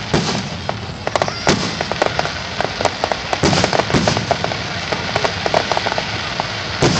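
Fireworks display: aerial shells bursting with repeated bangs and rapid crackling, several shots a second, with a loud bang near the end.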